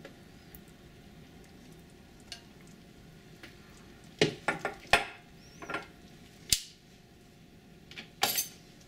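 Stainless-steel tongs clicking and scraping against an enamelled Dutch oven of chicken stock: a few scattered sharp clacks with quiet between them. A faint steady hiss sits underneath.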